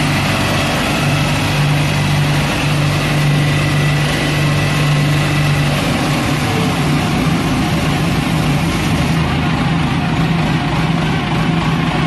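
The 45 kW diesel engine of a sewer jetting machine running steadily at a constant speed with a low hum.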